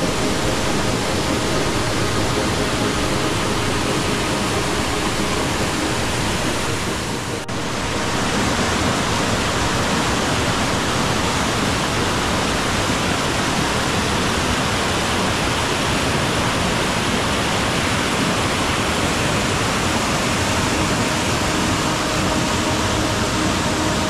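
Mountain stream rushing over boulders and small cascades, a steady rush of water. The level dips briefly about seven and a half seconds in, then carries on unchanged.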